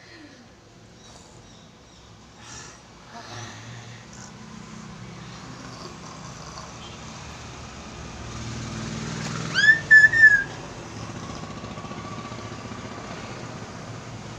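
Traffic on a nearby road: a low vehicle rumble that swells over several seconds and then holds steady. About ten seconds in, a loud high whistling tone sounds in three quick pulses.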